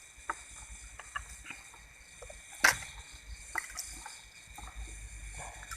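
Land snail shells clicking and knocking against each other and a container as they are washed in water, with one sharper knock near the middle, over a steady high whine.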